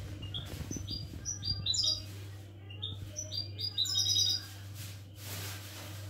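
Caged European goldfinch singing: quick runs of short, high twittering notes that stop about four and a half seconds in, over a steady low hum.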